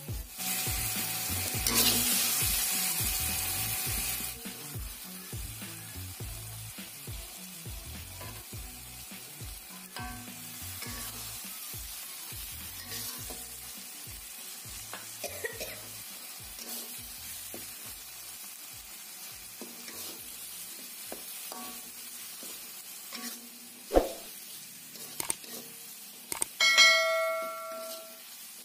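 A metal spatula stirring and scraping chili sambal with beef lung around a wok, over a steady sizzle that is loudest for the first few seconds. Near the end comes a sharp click, then a ringing bell-like chime.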